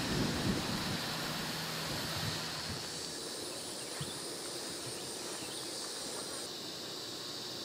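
Wind rumbling on the microphone for about the first two and a half seconds, then a steady high-pitched outdoor hiss.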